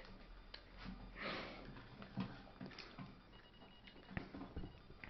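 Faint, quiet handling sounds: a few light clicks of a metal spoon against a plastic yogurt cup, with a soft breath about a second in.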